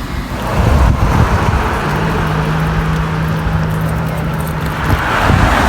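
A motor vehicle going by: a rush of engine and road noise, with a steady low engine hum for a few seconds in the middle and the hiss swelling again near the end.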